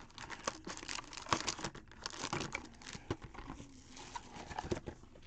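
Foil-wrapped trading-card pack and the cardboard Panini Obsidian box and insert being handled: irregular crinkling with light clicks and scrapes as the pack is lifted out of the box.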